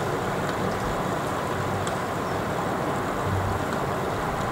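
Heavy rain shower falling steadily: a dense, even hiss of rain.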